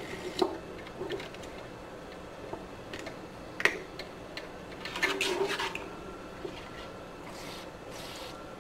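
Small plastic and metal clicks and knocks as a trigger-grip dispenser is fitted onto an aerosol solvent can, with a louder stretch of handling about five seconds in. Near the end comes a faint hiss as solvent sprays through the brush tip.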